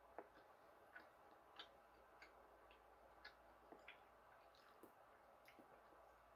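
Near silence with faint, irregular soft clicks, about one or two a second: a closed mouth chewing gummy candy.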